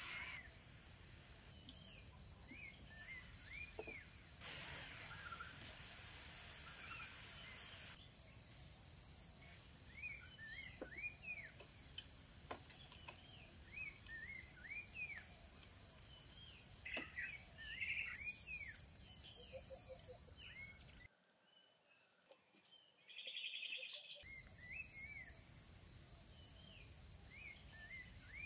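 Forest ambience: a steady high-pitched insect drone with many short bird chirps over it. Louder stretches of high insect buzz come and go abruptly, and there are a few faint taps.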